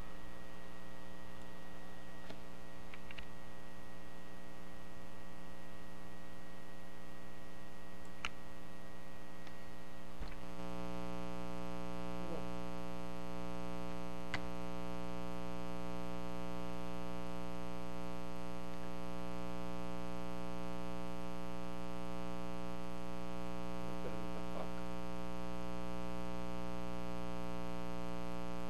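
Steady electrical mains hum made of a stack of steady tones, growing stronger and fuller about ten seconds in. A few faint clicks sound over it.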